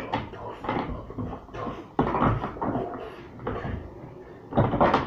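Large plastic toy building blocks knocking and clattering as they are picked up, shuffled and set down. The knocks come irregularly, the loudest cluster near the end.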